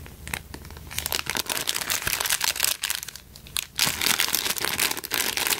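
Clear plastic packaging bag crinkling as it is handled, in two stretches of dense crackle with a short lull about three seconds in.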